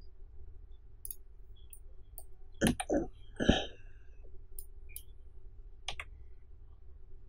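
Scattered computer mouse and keyboard clicks, with a cluster of three louder knocks a little under three seconds in, over a faint steady low hum.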